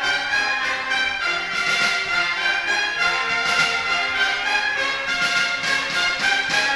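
Jazz big band playing an instrumental passage, the saxophone section, trumpets and trombones sounding together in sustained chords, with no vocal.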